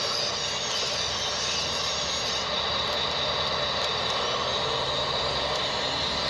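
Steady mechanical running noise like a vehicle's, with a thin high whine joining about two and a half seconds in.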